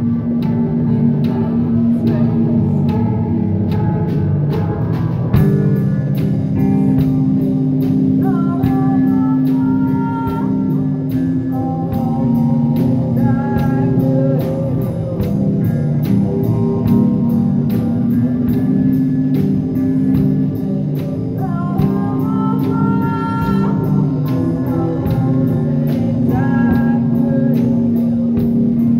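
Live rock band playing: electric guitars and a drum kit, with a singer. A steady cymbal-driven drum beat comes in about five seconds in, and the vocal lines come and go over the guitars.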